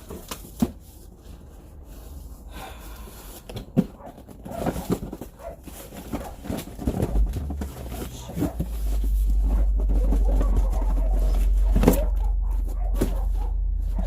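Unboxing of a mini fridge: scattered knocks, clicks and rustles of packaging being handled. A steady low rumble comes in at about eight seconds and continues.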